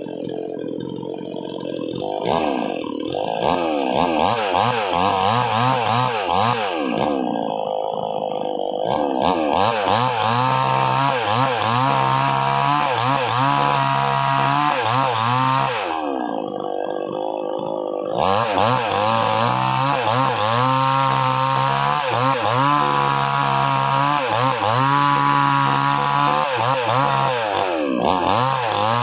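Gasoline chainsaw with a 20-inch bar cutting wood, its two-stroke engine revving up and down in repeated sweeps as it works through the log, easing off briefly twice.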